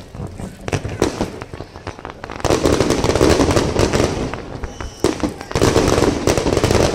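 Fireworks finale: separate shell bursts at first, then from about two and a half seconds in a dense, continuous barrage of bangs and crackle, easing briefly near five seconds before building up again.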